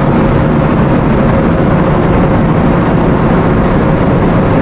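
Loud, steady rumble of heavy machinery, with a faint steady hum running through it.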